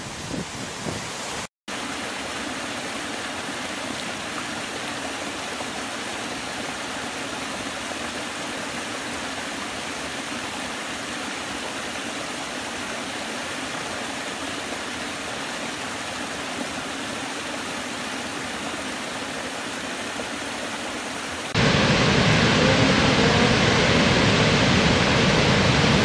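Small forest cascades pouring over rock ledges, a steady rushing splash of water. About 21 seconds in it switches to the much louder, fuller roar of a huge waterfall.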